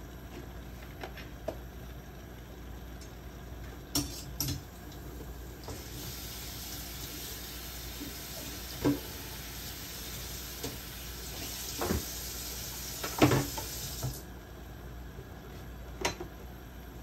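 Kitchen sounds at a gas stove: a steady hiss starts about six seconds in and stops about fourteen seconds in, with scattered clinks and knocks of pans and utensils, the loudest knock near the end of the hiss.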